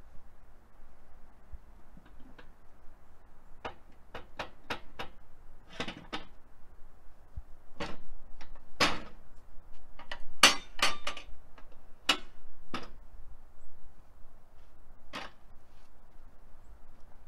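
Irregular series of sharp wooden knocks and clunks as a squared pine cant and boards are handled on the chainsaw mill's bunks, busiest in the middle; the chainsaw is not running.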